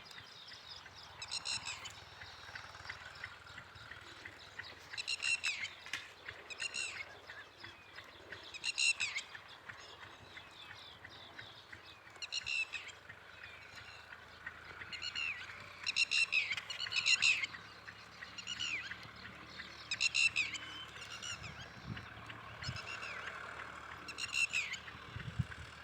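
Repeated short, high-pitched animal calls, one every second or two, each dropping slightly in pitch.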